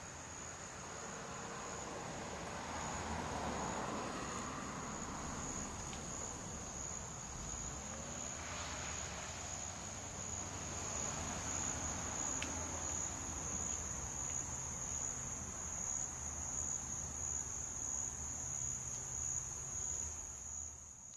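Continuous high-pitched insect trill, like crickets or katydids chirring, holding steady and fading out at the very end.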